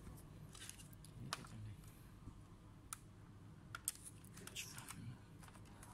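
Faint scattered clicks and short rustles of hands handling a laptop's plastic keyboard top case and its ribbon cable.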